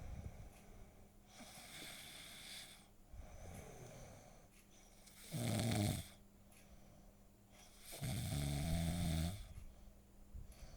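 A sleeping cat snoring, a slow breath every couple of seconds, with two louder snores about five and eight seconds in, the second lasting over a second.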